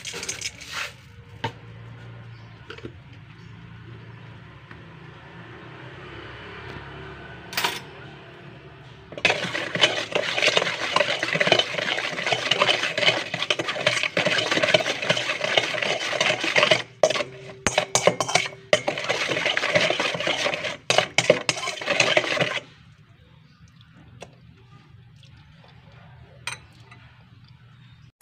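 A metal spoon stirring and scraping around a stainless-steel bowl of dark liquid marinade, a dense run of quick clinks and scrapes. It starts about nine seconds in and stops suddenly a little after twenty-two seconds.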